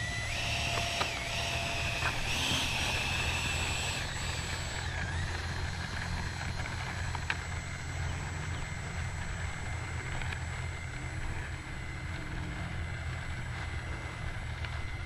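Whine of an E-flite F-16's 70mm electric ducted fan, stepping up in pitch over the first few seconds as the jet rolls down the runway, then fading as it moves away, over a steady low rumble.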